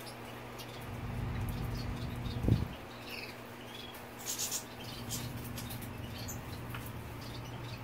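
European goldfinch moving about a cage and picking at a hanging sprig of amaranth leaves: light rustles and small ticks, with a brief flutter a little past four seconds in. A single knock about two and a half seconds in is the loudest sound, over a steady low hum.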